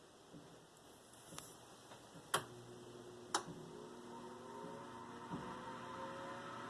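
Whirlpool convection oven during preheat: two or three sharp relay-like clicks, then the convection fan motor starts and runs with a hum that rises slowly in pitch and grows louder as the fan speeds up.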